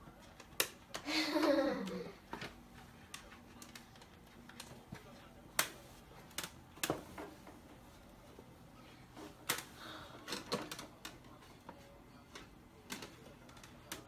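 Scattered sharp taps and clicks of kittens' paws and a wand toy's stick striking a stainless-steel refrigerator top. About a second in, a brief voice falls in pitch.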